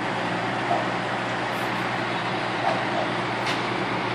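Fire engines idling, a steady engine rumble with a constant low hum, and faint voices.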